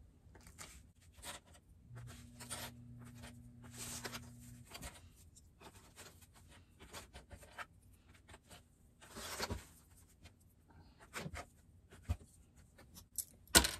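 Sheets of waterproof canvas rustling and scraping as they are handled on a cutting mat, with small plastic sewing clips clicking shut along the edges. A low steady hum runs for a couple of seconds near the start.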